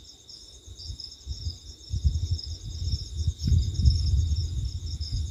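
Wind buffeting and road rumble from a moving vehicle on a highway, rising and falling unevenly. A steady high chirping hum sits over it the whole time.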